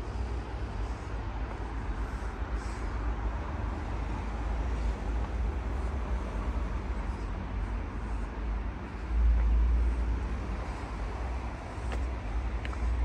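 Wind rumbling on the microphone over a steady hiss of distant town road traffic, with a stronger gust about nine seconds in.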